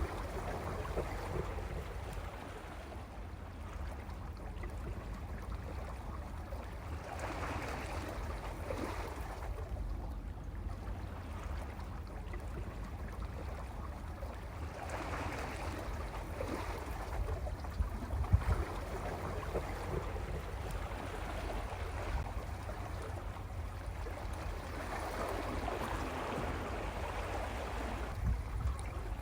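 Sea waves washing in over a rocky shore. The surf swells and draws back roughly every eight seconds, over a steady low rumble.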